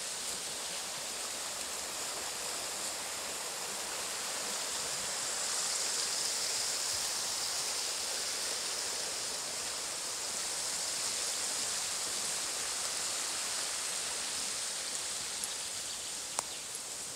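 Shallow woodland stream running over stones: a steady rushing that grows a little louder midway and eases again, with a couple of faint clicks near the end.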